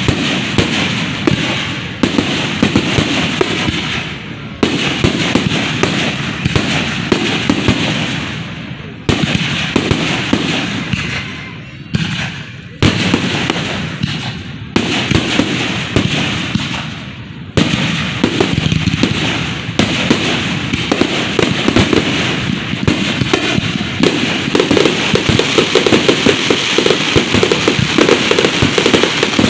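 Fireworks bursting at close range: a sharp bang every few seconds, each followed by dense crackling. From about two-thirds of the way through, the bursts run together into a continuous rapid crackling barrage.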